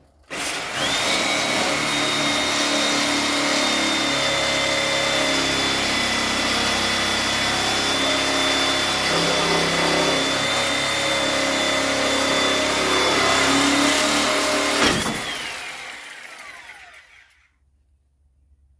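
Handheld electric grinder working the steel frame of an International Scout 800. It spins up about half a second in and runs with a steady high whine for about fourteen seconds, then is switched off and winds down, its pitch falling over about two seconds.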